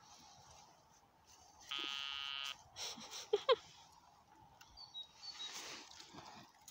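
Metal detector signalling a target: a steady buzzing tone lasting under a second, about two seconds in, followed about a second later by a brief warbling tone that glides up and down.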